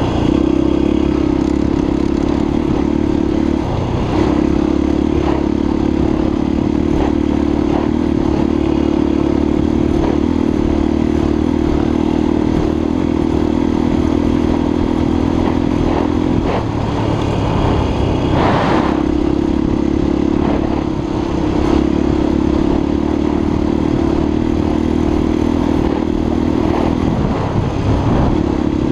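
Honda XLR 250 single-cylinder four-stroke enduro motorcycle engine running steadily under way. The engine note drops briefly about four seconds in, again a little past the middle with a short surge, and once more near the end, as the throttle eases and picks up.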